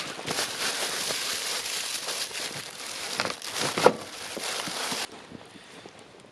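Crinkling, crackling rustle with scattered sharp clicks, the loudest about four seconds in, stopping abruptly about five seconds in.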